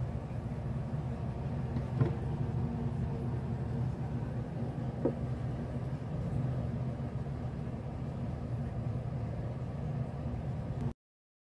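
Steady low mechanical hum, like a motor or fan running, with two faint clicks about two and five seconds in; it cuts off suddenly near the end.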